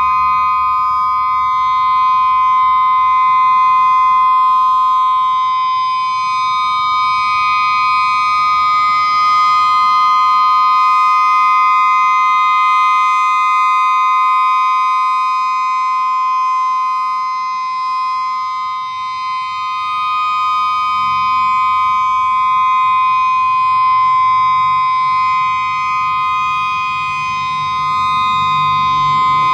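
Federal Signal EOWS 612 electronic outdoor warning siren sounding the steady alert signal: a loud, unwavering tone that holds its pitch throughout.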